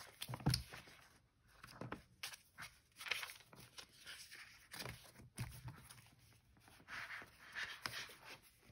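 Faint rustling and soft taps of paper pages being flipped through in a Hobonichi 5-year notebook, with its leather cover being handled near the end.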